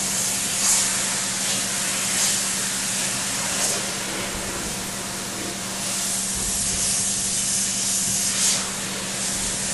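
Power-washer wand spraying a steady high-pressure water jet against a screen-printing screen, hissing without pause as it rinses off the softened stencil and ink, with a steady low hum underneath.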